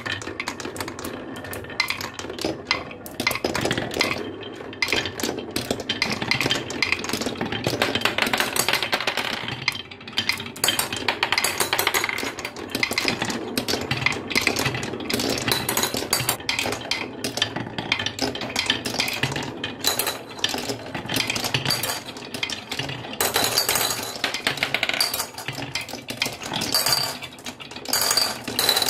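Glass marbles rolling through a HABA wooden marble run, with a rumble of rolling and a constant clatter of clicks as they knock along the zigzag slope, swirl around a wooden funnel bowl and run along the curved wooden rails.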